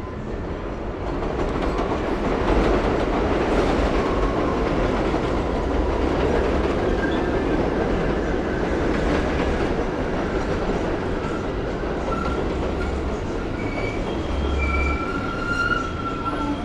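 A #6 subway train running on the elevated line over Westchester Avenue: a loud rumble of wheels on rail that builds over the first couple of seconds, with high wheel squeals coming in during the second half.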